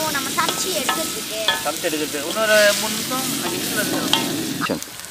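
Chunks of cassava sizzling in oil in a kadai while a spatula stirs them, making a steady frying hiss with scraping. Short pitched, voice-like sounds come and go over it, the loudest about halfway through.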